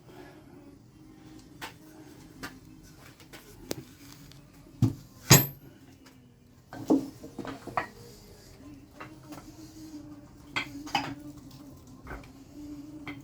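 Hard objects being handled and set down: scattered clinks and knocks, the loudest two close together about five seconds in, over a steady low hum.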